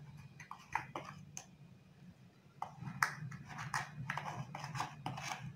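Metal spoon scraping and tapping inside the stainless-steel bowl of an electric spice grinder, working dry ground garlic powder out, as a string of irregular clicks and scrapes that grows busier about halfway through. A low steady hum runs underneath.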